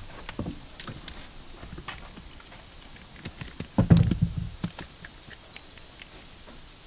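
A downy chick moving about in a box of wood shavings: light taps, pecks and rustles, with a louder burst of bumping and scuffling about four seconds in.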